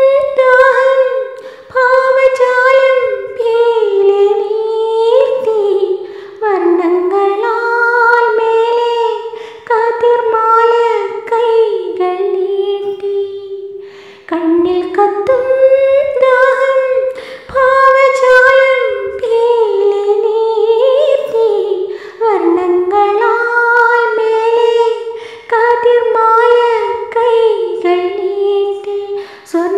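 A woman's voice singing unaccompanied, humming a wordless melody in phrases of a few seconds each with brief pauses between.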